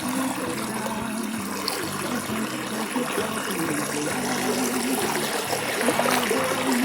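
Rain and running water, a steady hiss throughout, with music playing underneath.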